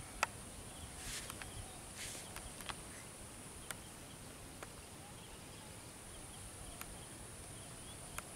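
Steady high-pitched drone of insects, with a few sharp clicks scattered through it.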